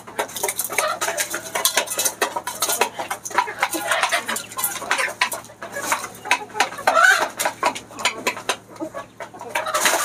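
A bird pecking grain out of a small plastic cup held in the hand: rapid, irregular clicking taps on the plastic, with chickens clucking.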